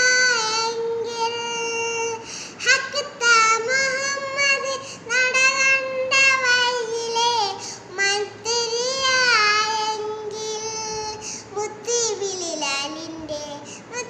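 A young girl singing a Malayalam Islamic devotional song (a song in praise of the Prophet) solo and unaccompanied, in long held notes with wavering ornaments.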